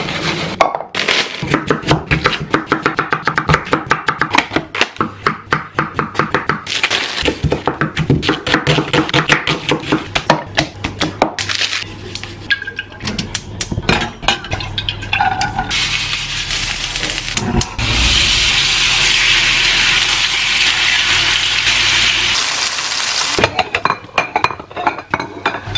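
Cooking sounds over music: clicks and knocks of utensils against a bowl and a wooden chopping board. Then, about two-thirds in, chicken sizzles loudly in a frying pan for several seconds.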